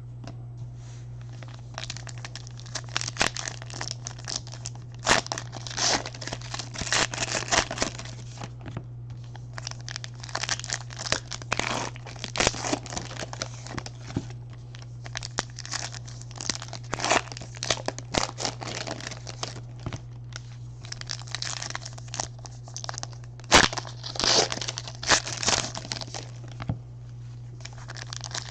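Trading card pack wrappers being torn open and crumpled by hand: irregular crinkling and tearing in quick clusters, loudest about two-thirds of the way through. A steady low hum runs underneath.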